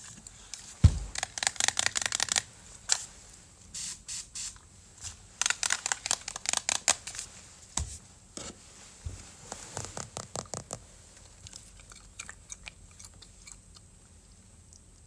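Crunchy chewing: runs of rapid crunches in several bursts, tapering off toward the end, with a single thump about a second in.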